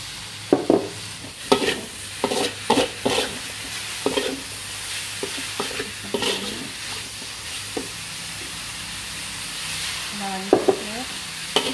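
Metal ladle stirring and scraping shredded fish with chillies around an aluminium wok, with irregular scrapes and clanks against the pan, most in the first half, over a steady sizzle of frying after a little water has been added.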